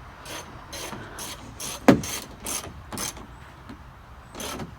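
Ratchet wrench worked back and forth to tighten a bolt, a rasping stroke about twice a second. One harder knock sounds about two seconds in.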